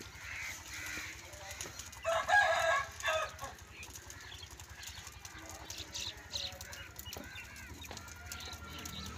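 A rooster crows once, about two seconds in, with small birds chirping faintly around it.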